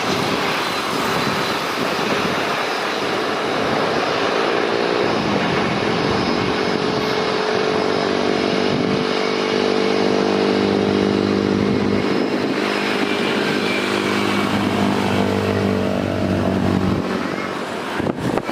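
Jet noise from an Airbus A320 airliner on its landing approach. About five seconds in, a steady, pitched engine hum joins it and runs until about a second before the end.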